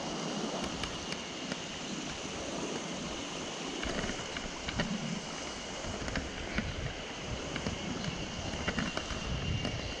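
Rushing mountain stream, a steady even hiss of water, with low rumbling bumps from wind or handling on the microphone starting about four seconds in.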